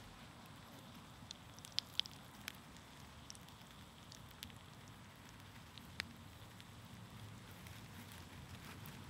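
An egg frying in fat in a hand-forged egg spoon over campfire coals: a faint, steady sizzle with a few sharp pops, several about two seconds in and one about six seconds in.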